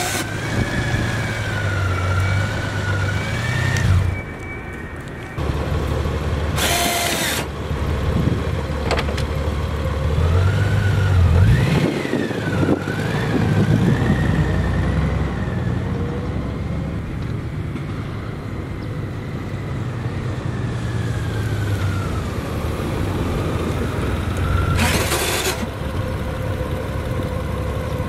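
Honda Gold Wing's flat-six engine running as the touring motorcycle rides slowly around and pulls up, with the engine pitch rising briefly about twelve seconds in. Short bursts of noise come about seven and twenty-five seconds in, and the sound drops for a moment about four seconds in.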